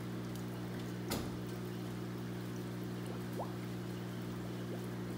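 Water from an aquarium filter return pouring and splashing steadily into a stingray tank, over a steady low hum. One sharp click about a second in.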